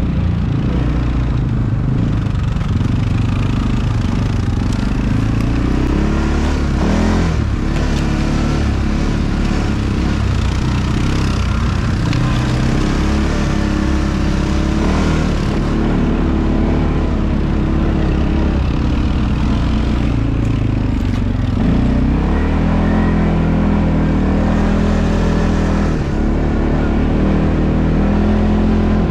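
ATV (quad bike) engine running under way, its note stepping up and down with the throttle, with a few knocks and rattles about seven seconds in.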